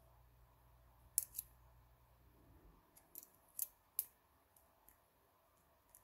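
Small sharp metallic clicks at irregular intervals as a multi-leaf steel picking tool is worked in a six-lever lock, its leaves and the levers ticking against each other. The loudest clicks come a little over a second in and again about three and a half to four seconds in.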